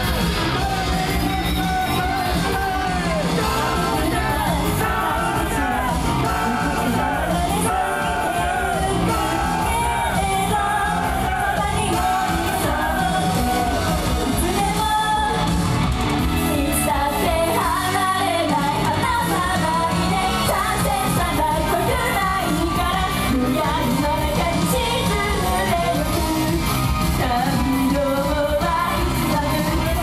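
Live J-pop idol performance: female voices singing over a pop backing track with a steady beat.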